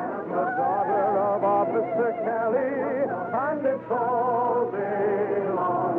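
Orchestral music with a wavering vibrato melody line and a brief upward glide a little past the middle, heard through a thin, muffled old radio recording.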